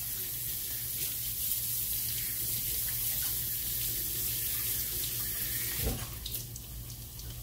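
Kitchen faucet running into a sink while hands are washed, with a steady hiss of water that is shut off about six seconds in.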